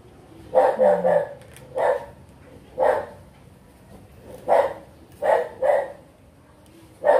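A dog barking off-camera: about ten short barks at irregular intervals, some in quick pairs.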